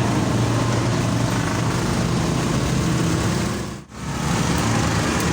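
A small motorcycle engine idling steadily, with a brief dip in the sound almost four seconds in.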